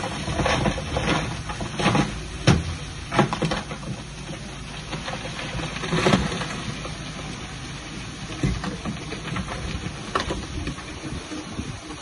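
Bulldozer engine running, with irregular knocks and clanks over it, most of them in the first few seconds.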